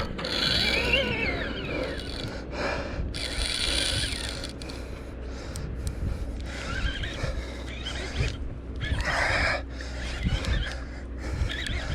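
A man grunting and breathing hard while fighting a hooked yellowtail on rod and reel, with gliding groan-like vocal sounds in the first couple of seconds and again near the end. A steady low hum runs underneath.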